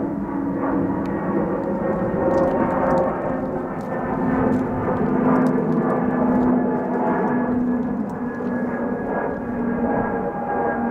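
Bombardier CS100 airliner's Pratt & Whitney PW1500G geared turbofan engines at climb power as the jet climbs away, heard from the ground. A steady rushing drone carries a few humming tones that drift slightly in pitch.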